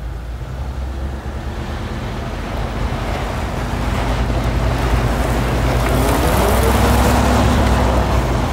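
A vehicle's engine running as it drives over a soft sand track, with tyre and wind noise that grows louder from about halfway through as it picks up speed.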